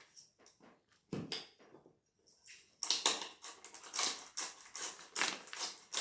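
Pepper mill being twisted, grinding peppercorns in a run of gritty crunching strokes, a few scattered at first and then quick and steady from about halfway through.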